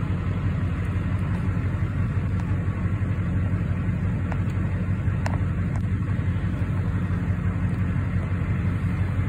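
Chevrolet Duramax LBZ 6.6-litre V8 turbo-diesel idling steadily on its programmed high idle, at about 700 rpm just after a cold start, heard from inside the cab.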